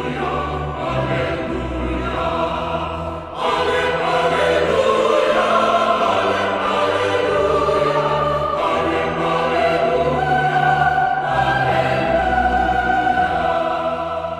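Background choral music: a choir singing slow, sustained chords, swelling louder about three and a half seconds in.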